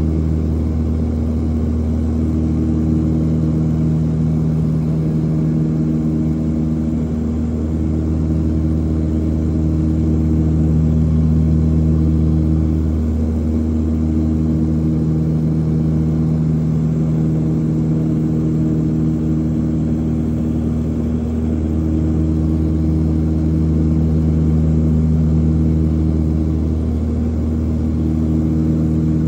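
Propeller plane's engines and propellers droning steadily, heard from inside the cabin, with a low hum that swells and fades every few seconds.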